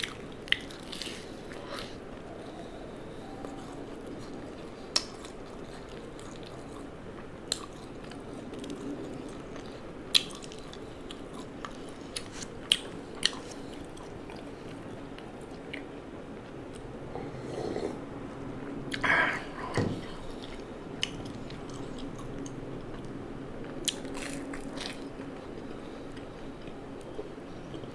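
A person chewing and biting food close to the microphone, with sharp crunches scattered through and one louder, longer noise about two-thirds of the way in.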